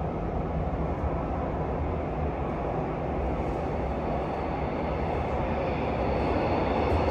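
Gyeongui–Jungang line electric train approaching through the tunnel behind the platform screen doors: a steady low rumble that grows slowly louder toward the end as the train nears the platform.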